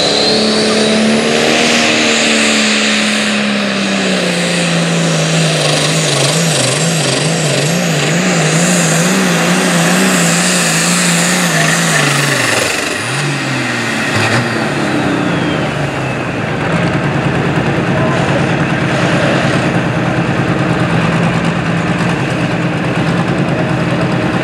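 International 1066 pulling tractor's turbocharged diesel engine running at full power under the load of the sled. Its note sags slowly, wavers up and down through the middle of the pull, then drops off sharply a little after halfway and settles to a steady run for the rest.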